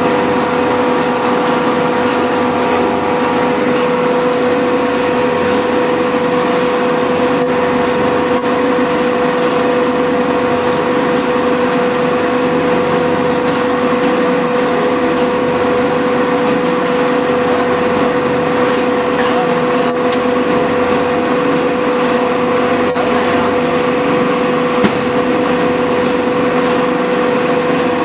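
A true stone paint mixer running steadily, its motor and drive giving a constant hum with a strong steady tone over the churning noise. A brief click near the end.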